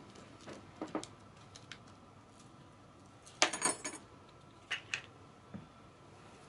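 Metal measuring spoon clinking against a plastic mixing bowl and wire whisk as seasoning is tapped into sauce: a few light clicks, then a quick rattle of metal clinks a little over three seconds in, and two sharp clicks near the end.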